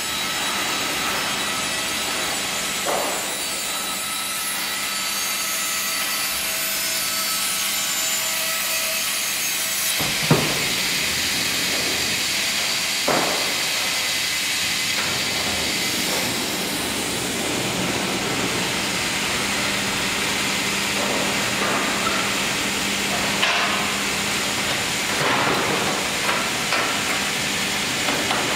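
Sawmill machinery running: a FİMAKSAN Fİ.120/HDG hydraulic vertical log band saw and Fİ.130/UHKD-3 remote-controlled log carriage, a continuous loud mechanical noise. It gets heavier about ten seconds in, and there are occasional knocks and clanks, a cluster of them near the end.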